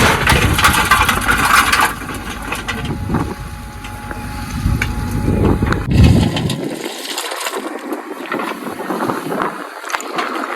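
Earth-moving machinery at work: diesel engine running with crunching and scraping of soil, loudest in the first two seconds and again briefly about six seconds in, the deep engine rumble then mostly dropping away.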